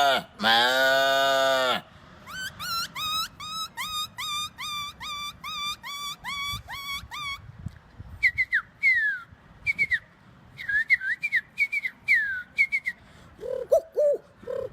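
A man imitating animal calls with his voice and whistling. A loud held call ends about two seconds in. Then comes a fast run of rising, bird-like whistled chirps, about two a second, then sharper falling whistles. Near the end there is a string of lower short calls.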